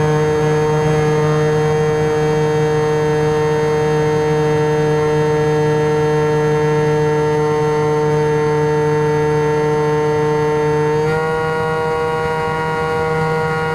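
Turnigy Aerodrive SK3 35/36 1400kv brushless electric motor spinning a three-blade 9x6 propeller on a SkyWalker FPV plane in flight, a steady whine heard through the onboard camera. Its pitch steps up slightly about eleven seconds in.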